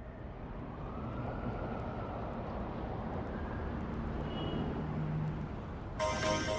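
A steady noisy rumble like outdoor traffic ambience fades in and holds. Near the end, music with a quick string-like pulse starts suddenly.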